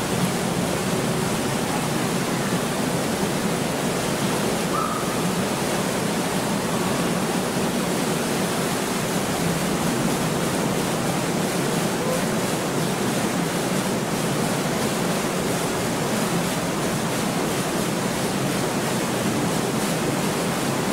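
Steady, even rushing noise of a sightseeing boat under way on a canal, its motor and the water's wash blending into one sound.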